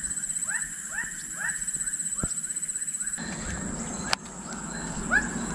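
An animal calling over and over in short, arched calls, about two to three a second, over a steady high-pitched whine. A single sharp click comes just after four seconds in.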